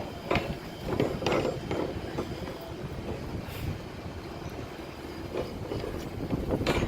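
Construction-site noise: a steady low rumble with several short knocks, the loudest near the end.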